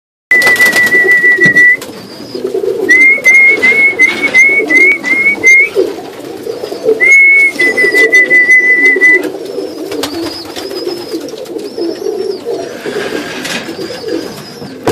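Domestic pigeons cooing in a loft, with a continuous low murmur of coos throughout. Over it, a high, clear whistled note is held for about a second and a half at the start. A string of about eight short rising whistled notes follows, then another long held note in the middle.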